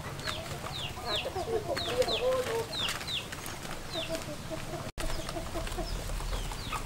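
Domestic chickens clucking in short bursts, with a run of high, quickly falling chirps repeated over them.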